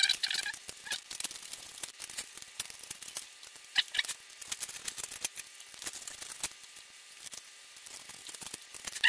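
Knife slicing through the edge of a not-yet-fully-cured fibreglass laminate duct: irregular scratchy crackles and clicks, with an occasional short squeak of the blade in the resin.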